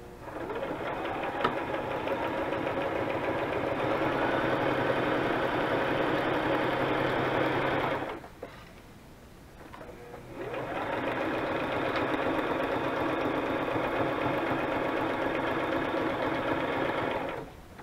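Electric sewing machine stitching a paper pocket onto a tag, running in two stretches of about eight and seven seconds with a short stop between them. Each run speeds up as it starts, then holds a steady pace.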